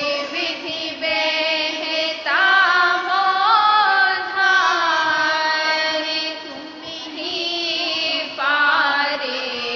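Devotional hymn (a Radhasoami shabd) sung in long, drawn-out melodic phrases with musical accompaniment.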